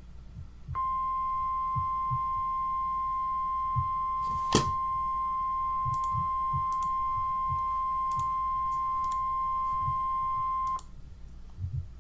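NOAA Weather Radio's 1050 Hz warning alarm tone: one steady, single-pitched beep that starts about a second in and cuts off abruptly about ten seconds later, the signal that a warning message (here a tornado emergency) is about to be read. A sharp click about halfway through, and faint low thumps underneath.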